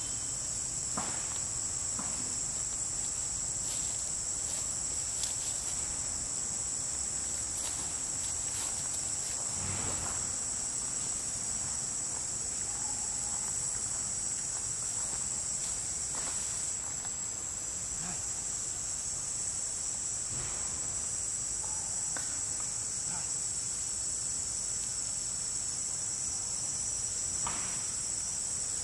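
Steady high-pitched insect chorus, a continuous shrill drone, with a few faint clicks scattered through it.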